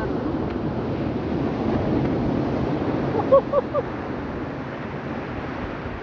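Steady rush of wind on the microphone and surf on the beach. A little past halfway, three short high squeaks stand out as the loudest sounds.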